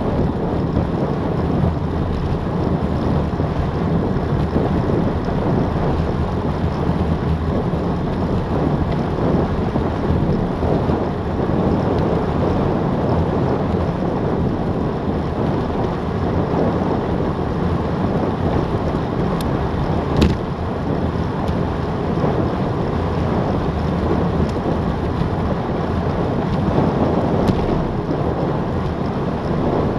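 Wind buffeting a bike-mounted Garmin VIRB action camera's microphone during a fast descent at about 22 to 29 mph, a steady dense rumble with no let-up. A single sharp click sounds about twenty seconds in.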